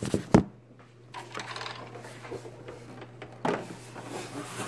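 Camera handling noise: two sharp knocks as the camera is set down on a table, then muffled rustling and shuffling with another knock about three and a half seconds in. A steady low hum runs underneath.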